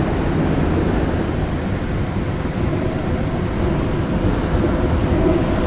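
Montreal Metro rubber-tyred train running, heard from inside the car: a steady low rumble, with a faint steady hum joining about halfway through.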